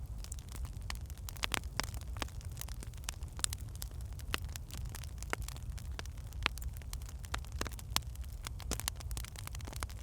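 Wood fire in a fireplace crackling: irregular sharp pops and snaps of burning logs over a steady low rumble.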